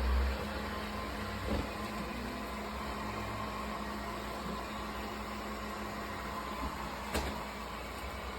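Airzeen R7 robot vacuum running: a steady whirring hum from its suction motor and brushes, with two light knocks, about a second and a half in and again near the end.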